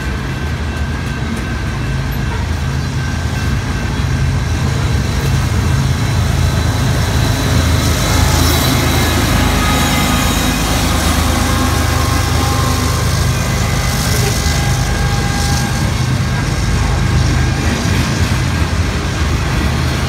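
Freight train passing close by: the diesel engine of a mid-train distributed power locomotive drones steadily as it goes past, fading after about two-thirds of the way through while the freight cars behind it keep rolling by with steady wheel-on-rail rumble.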